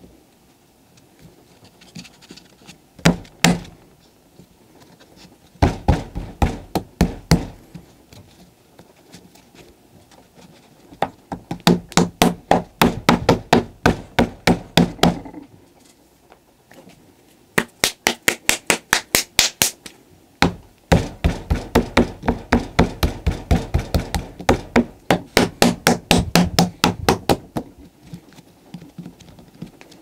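A hand slapping soft lumps of clay flat into a slab, in quick runs of strikes at about five or six a second. The runs last a few seconds each, with short pauses between them.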